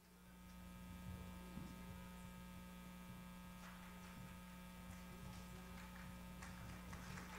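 Low, steady electrical mains hum with a few faint steady overtones, coming up suddenly at the start, with a few faint ticks scattered through it.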